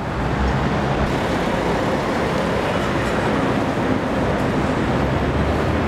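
Steady low background rumble with a faint hum, unbroken throughout.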